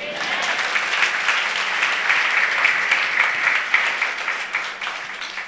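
A standing congregation applauding: many hands clapping together in a dense patter that fades out near the end.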